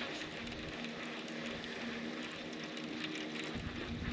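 A faint, steady mechanical whir that drops out and resumes, over a light crackling hiss.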